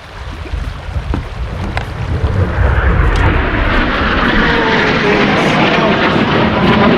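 Low-flying military training aircraft passing overhead. Its engine noise builds over the first few seconds into a loud, steady sound, with a faint pitch that glides down and then up.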